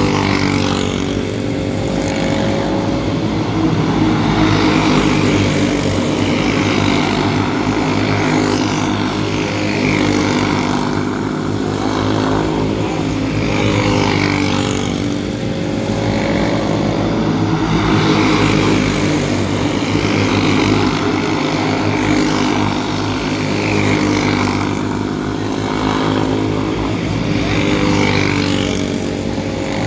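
A pack of small-engine racing karts running hard in a race. Their engine notes swell and fade every few seconds as the karts come past and pull away again.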